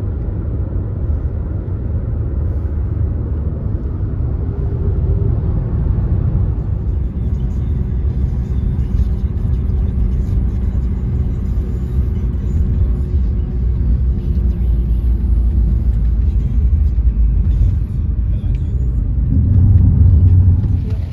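Steady low rumble of a moving car heard from inside the cabin, road and engine noise, swelling louder near the end.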